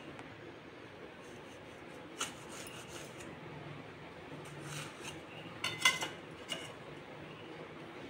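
A kitchen knife clinking and scraping on a steel plate while slicing a soft sponge cake: a few light taps and scrapes, the loudest cluster about six seconds in.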